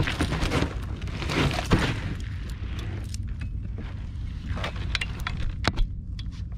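Handling noise as a grouper is dealt with in a landing net aboard an inflatable boat: scraping and rustling of net and gear for the first two seconds, then a few sharp metallic clicks and knocks, over a steady low rumble.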